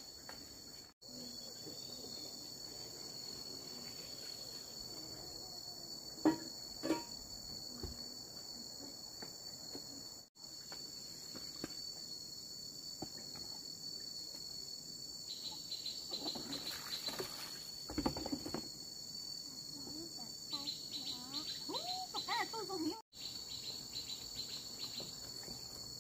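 Steady high-pitched chorus of chirping insects, with a few faint knocks about six and seven seconds in.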